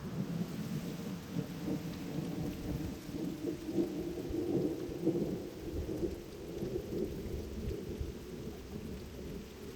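Steady rain falling, with a low, continuous rumbling noise underneath that rises and falls.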